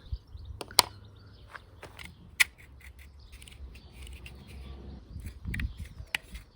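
Sharp clicks and light knocks of small metal parts and hand tools being handled, a few louder strikes among them, over a low steady hum.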